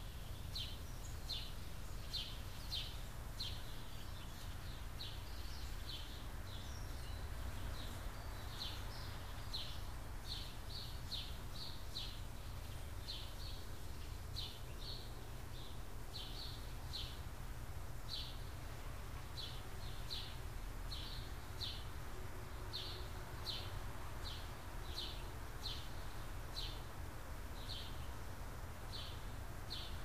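A small bird chirping over and over, short high chirps coming irregularly about one to two a second, over a steady low rumble.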